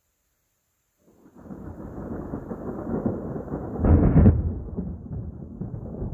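Thunder rumbling: it starts about a second in, swells to its loudest peak around four seconds in, and keeps rolling.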